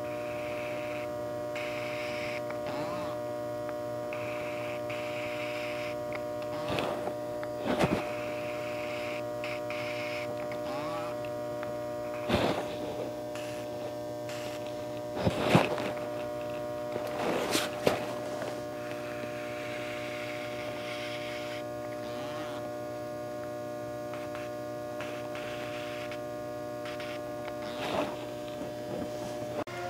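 Steady electrical mains hum, broken by a few scattered sharp clicks and knocks.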